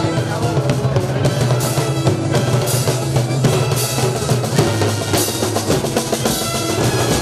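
Marching band playing in the street: brass holding low sustained notes under a dense beat of bass drum and snare drum, with drum rolls.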